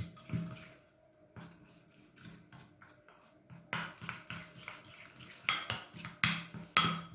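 Metal spoon stirring and clinking against a small glass bowl, mixing icing sugar and lemon juice into a glaze. The taps thin out to a soft scraping about a second in, then come quicker and louder after about three and a half seconds.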